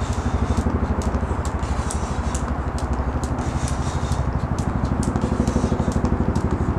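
Jump rope slapping a paved patio a little over twice a second as it is skipped, each strike a sharp click. A steady low throbbing hum runs underneath.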